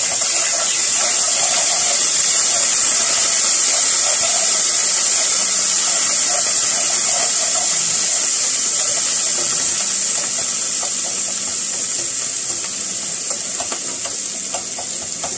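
Food frying in hot oil in a pot: a loud, steady sizzle that eases off slowly, with a few light clicks near the end.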